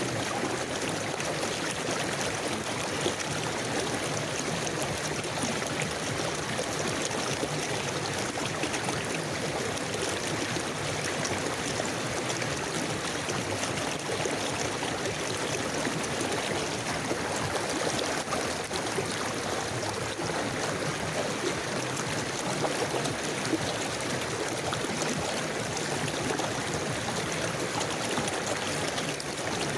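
River water flowing steadily over rocks, a continuous even rush with faint trickling and gurgling.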